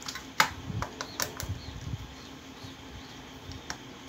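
Plastic clicks and taps from hands and a screwdriver working on an electrical contactor's housing and cover: one sharp click about half a second in, then several lighter taps over the next second and a half and one more near the end, over a faint steady hum.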